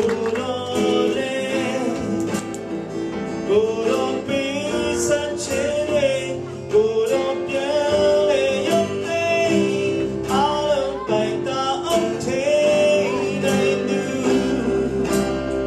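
A Christian worship song played live: a male voice sings a slow melody into a microphone over a strummed acoustic guitar and a small band.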